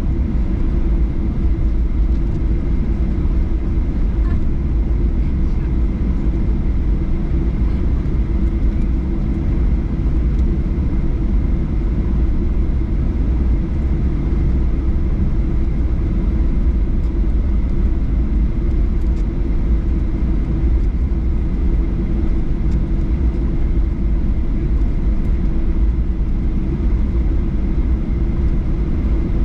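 Steady low rumble inside the cabin of a Boeing 737-800 as it taxis, its CFM56-7B engines at low power, with a faint steady whine above the rumble.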